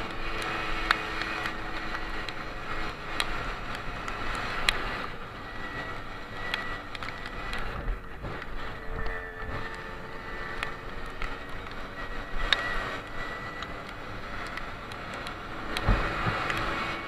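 Simson S51 moped's two-stroke single-cylinder engine running under way, mixed with wind and road noise and small knocks from the rough track. It is quieter through the middle and picks up again near the end, where there is a single dull thump as a hand touches the helmet camera.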